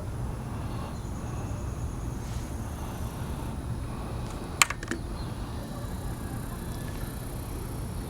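Steady low outdoor background rumble, with one sharp click about halfway through.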